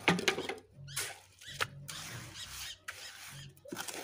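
Wet cement-and-sand mix being dropped into a wooden mold and worked by hand: gritty scraping and rustling with a few sharp knocks, the loudest at the very start.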